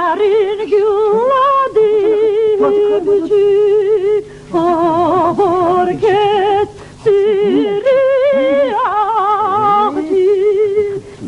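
Voices singing a melody in phrases of long held notes with a wavering vibrato, with brief pauses about four and a half and seven seconds in.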